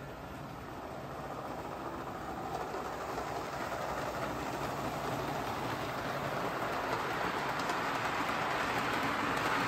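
On30 model trains running on the layout's track: a steady rolling rattle of wheels on rail that grows gradually louder as a freight train draws closer.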